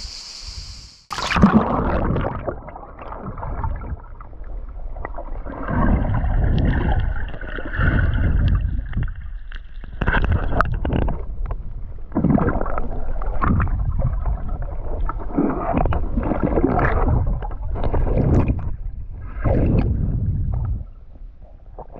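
Muffled underwater sloshing of water from a snorkeler swimming, picked up by an action camera held underwater. It comes in uneven surges, roughly one every second or two, starting abruptly about a second in.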